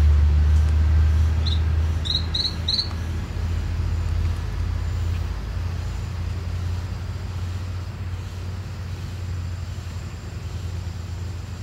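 A steady low rumble, loudest at the start and slowly fading, with four short high chirps about two seconds in.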